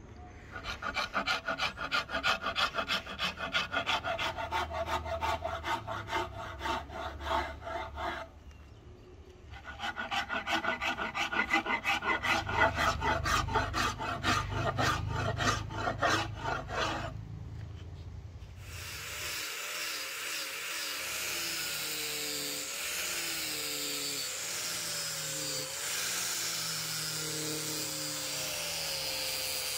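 A rasp or file worked across a rosewood axe handle in quick back-and-forth strokes, in two runs with a short pause between them. For the last third a steady machine whir with a wavering pitch takes over.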